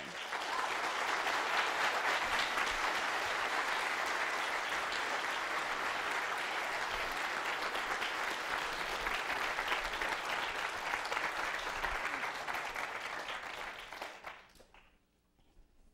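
An audience applauding: dense, steady clapping that dies away about two seconds before the end.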